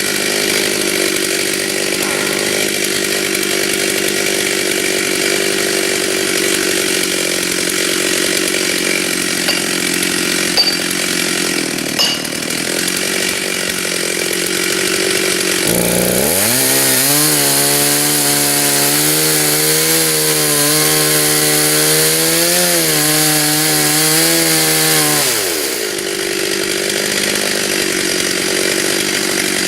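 Stihl chainsaw running at high speed, cutting into a dead white oak. About 16 seconds in its pitch sweeps up and holds clear for roughly ten seconds, then falls back near the end.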